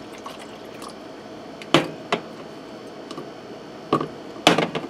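Kitchen containers being handled on a counter: a few sharp knocks and clicks, the loudest cluster near the end, over a faint steady hum.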